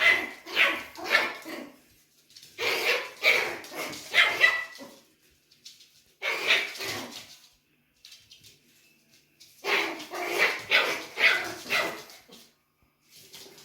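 Dog barking in four volleys of quick barks, a few barks a second, with short pauses between them.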